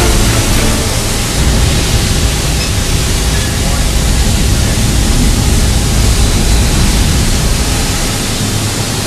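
Dry-cleaning plant machinery running with a loud, steady rushing hiss.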